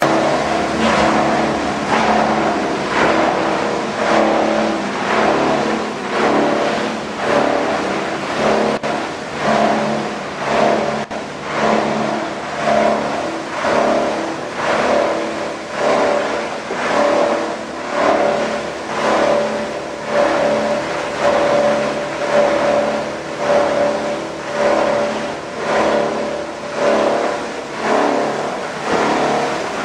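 A PET bottle washing line running: machinery with a steady pitched hum that swells about once a second.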